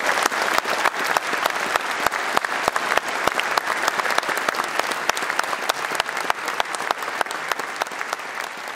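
Audience and wind band applauding: dense, steady hand-clapping that thins out and fades near the end.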